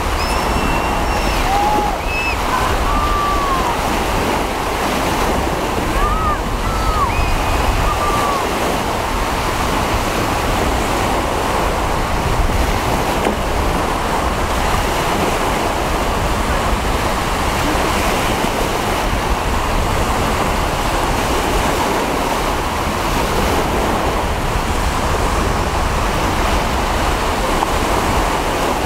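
Sea waves washing and wind buffeting the microphone, a steady, even noise. In the first eight seconds a few short, high calls rise and fall over it.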